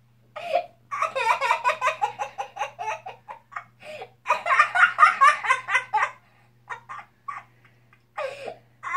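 A young boy in a fit of laughter: two long runs of quick, high laughs, one starting about a second in and one about four seconds in, then shorter bursts near the end.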